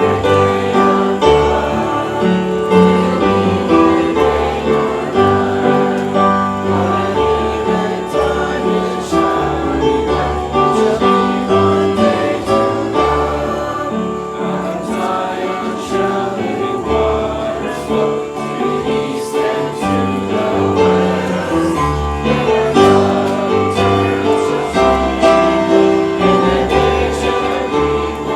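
Music: a gospel-style song with several voices singing over instruments, at a steady beat.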